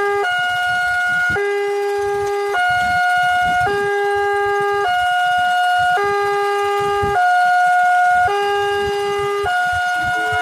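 Electronic railway level-crossing alarm sounding a two-tone signal, alternating between a higher and a lower tone about once a second. It is triggered by an approaching train passing the wheel sensor.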